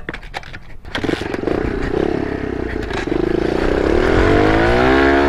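Kawasaki KLX110 pit bike's small single-cylinder four-stroke engine being started: a few sharp clicks, then it catches about a second in and runs. From about three seconds in it revs up with a rising pitch as the bike pulls away.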